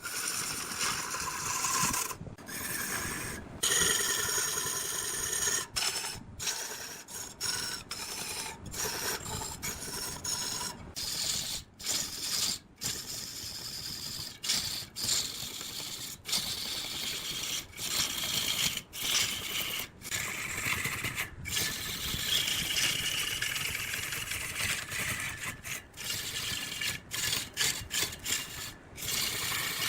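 Woodworking machinery cutting and scraping wood, a steady grinding, rasping noise. It is broken by many abrupt cuts every second or so.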